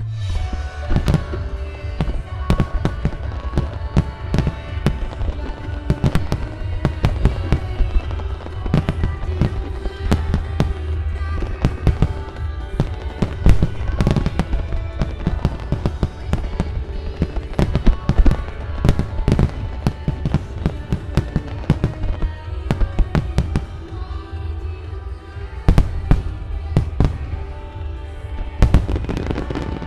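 Aerial firework shells bursting in quick, irregular succession, with a few heavier bangs standing out, over music playing throughout.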